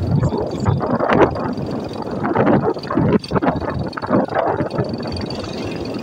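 Road and engine noise from riding in a moving vehicle, with uneven gusts of wind on the microphone.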